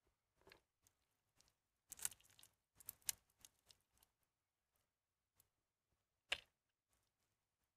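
Soaked, mushy bar soap being squeezed and kneaded by hand in a plastic tub: soft, irregular squishing crackles, with a cluster about two to three seconds in and the sharpest crackle about six seconds in.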